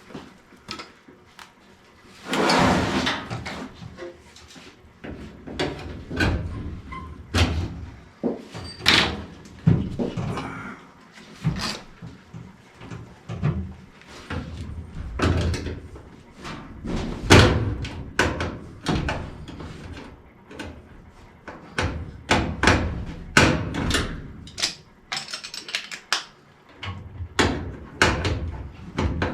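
Irregular knocks, thuds and clanks of hand work on a gas furnace being taken apart for a heat exchanger replacement. About two seconds in comes a louder scraping rush that lasts about a second.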